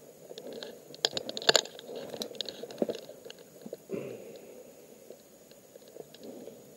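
Footsteps crunching and snapping through dry twigs and brush, in an irregular run of crackles, the sharpest about a second and a half in.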